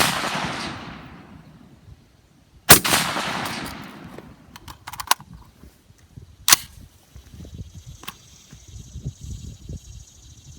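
Smith & Wesson M&P 15 AR-15 rifle firing 5.56 mm single shots during a rapid-fire string, each report echoing away. A shot rings out about three seconds in, a sharper, shorter crack comes about six and a half seconds in and a fainter one near eight seconds, with a few light clicks in between.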